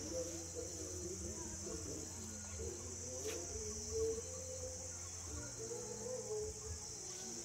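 Steady, high-pitched insect chorus, with a faint wavering murmur lower down and a single click about three seconds in.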